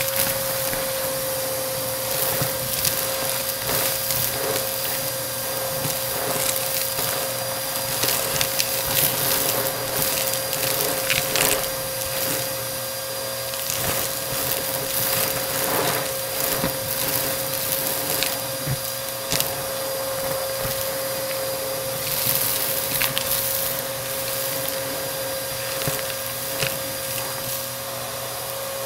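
Bissell AeroSwift vacuum cleaner running with a steady whine, crackling and clicking over and over as it sucks up crunchy debris.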